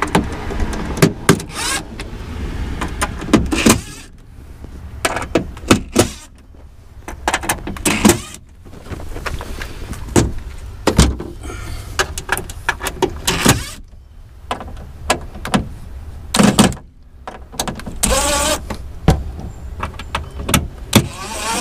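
Cordless drill whirring in short bursts as it backs out the bolts of a hybrid battery pack's metal cover, with clicks and clatter of bolts and tools handled between runs.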